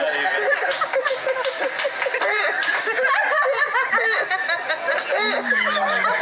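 Funny laughing sound effect: many high-pitched laughs overlapping in a dense, continuous chorus.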